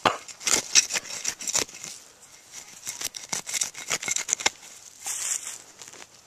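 Serrated hand digger stabbing and scraping into soil and roots: runs of short crunching strokes in the first two seconds and again about three to four seconds in.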